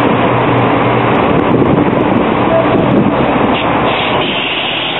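Steady city street traffic noise, with a city bus driving close past near the end.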